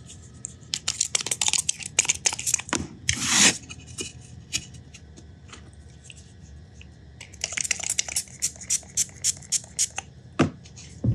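Hands handling a freshly glued wooden block on a workbench: two runs of quick scratchy clicks, the first ending in a short tearing sound about three seconds in, the second near the end.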